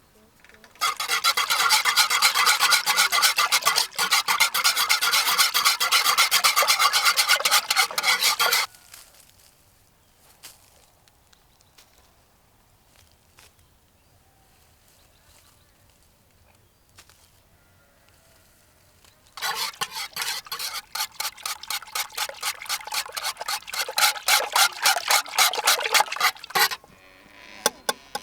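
Rapid rhythmic rasping strokes, as of food being grated on a metal hand grater. They come in two long bouts, several strokes a second, with a quiet gap of about ten seconds between them.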